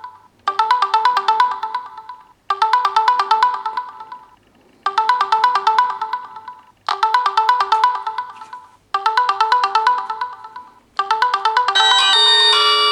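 Mobile phone ringtone: six short phrases of rapid trilling notes, repeated about every two seconds. Near the end a second, fuller ringtone or alarm tone starts playing over it.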